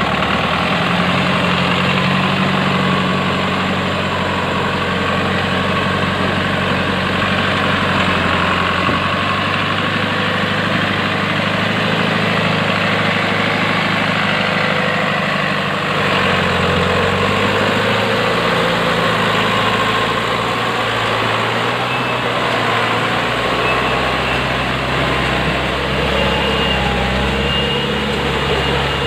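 TMT truck's diesel engine running under load as the truck creeps through deep mud at low speed, its note changing a few times.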